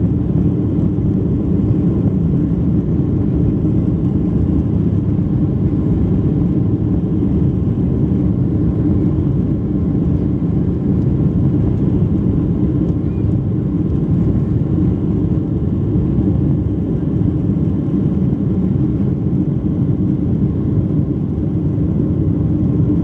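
Boeing 737-600 jet engines at takeoff thrust heard from inside the cabin: a loud, steady low noise as the airliner rolls down the runway at speed, lifting off near the end.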